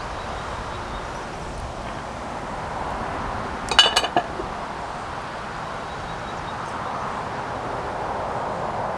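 Braising liquid heating toward a boil in a cast iron skillet over charcoal: a steady hiss. Just under four seconds in there is a quick run of metallic clinks.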